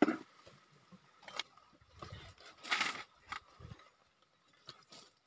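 Faint scattered rustles and light knocks as grilled bananas and food are handled and set down on a banana leaf spread over a plastic sheet, with a louder rustle about three seconds in.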